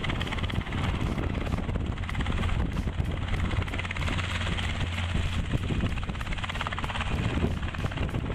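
Robinson light training helicopter hovering low and turning on the spot: a steady rotor beat over the piston engine's drone.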